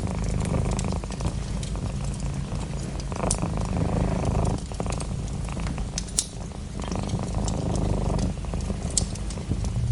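Domestic cat purring close up, a steady low rumble swelling with each breath about every three and a half seconds, with scattered small crackles and pops from a fireplace fire.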